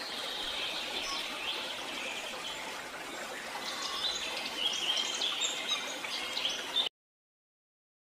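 Songbirds chirping and calling over the steady rush of flowing stream water. The chirps grow busier about four seconds in, and the sound cuts off abruptly near the end.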